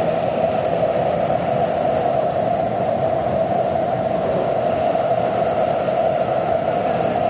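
Taipei MRT train running: a steady, unbroken noise with a strong mid-pitched band that holds level throughout.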